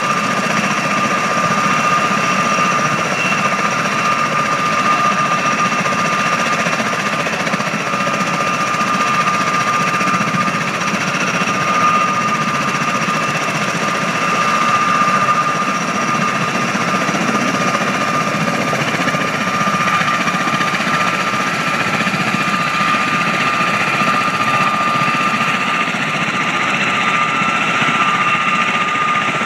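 V-22 Osprey tiltrotor's proprotors and twin turboshaft engines running, a loud, steady noise with a high steady whine over it.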